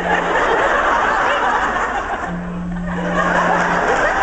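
A mobile phone's vibration motor buzzes with an incoming call in flat, low, on-off pulses, one ending just after the start and another lasting about a second and a half in the middle. An audience laughs and chatters over it.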